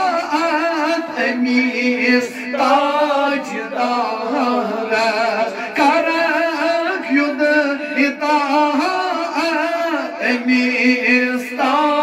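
Men's voices singing a Kashmiri naat, a devotional song in praise of the Prophet, with a lead voice and others joining in. The melody moves in long, wavering, ornamented notes.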